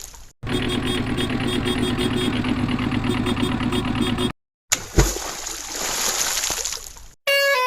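Vehicle engine running steadily with a fast, even chug, cut off abruptly about four seconds in. After a short silence comes a thump and a stretch of rushing noise, and a tune in short stepping notes starts near the end.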